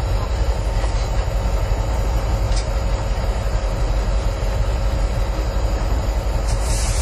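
Union Pacific diesel locomotive running, heard from inside its cab: a steady low engine rumble mixed with wheel-on-rail noise, with a short hiss near the end.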